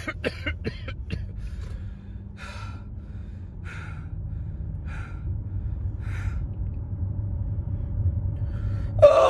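Low rumble of a moving car's cabin, slowly getting louder, with a person breathing out in soft puffs about once a second. Near the end a loud yell breaks in, falling in pitch.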